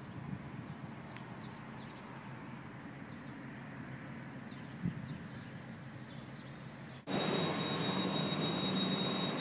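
Outdoor riverside ambience: a steady low rumble and hiss with faint, short bird chirps. About seven seconds in it cuts abruptly to a louder, steady hiss with a thin high whine running through it.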